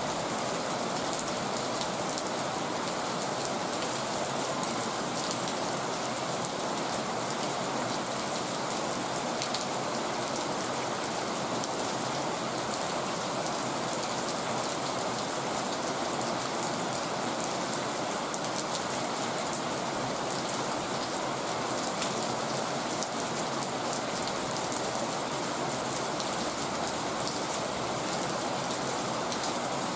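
Heavy rain falling steadily, a dense even hiss with many fine drop impacts on surfaces.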